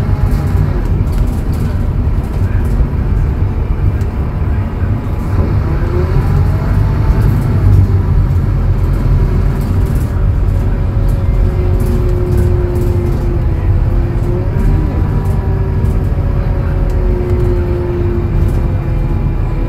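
Scania DC09 five-cylinder diesel engine of a Scania K280UB city bus, heard from inside the bus as it drives. A steady low drone runs under higher whining tones that rise and fall, then hold fairly level in the second half.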